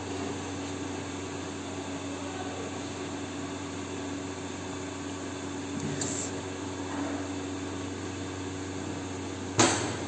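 Steady rush and hum of a high gas-burner flame under a frying pan, with one sharp clank near the end as the oil bottle is set down on the steel counter.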